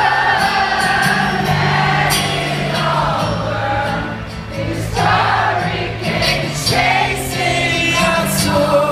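Live acoustic guitar strumming chords while many voices sing along, recorded from among the audience.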